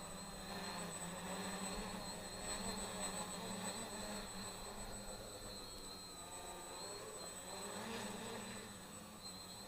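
Faint buzzing whine of a home-built 3D-printed quadcopter's electric motors and propellers, its pitch wavering up and down as the throttle changes.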